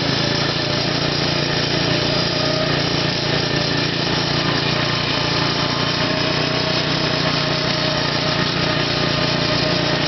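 Small engine of a lawn cart built from a riding mower, running steadily under way, with no change in speed.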